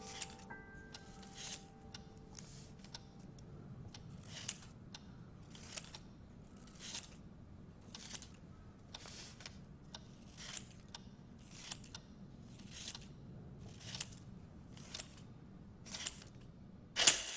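A series of short, evenly spaced scraping strokes, about one a second, with a louder stroke near the end.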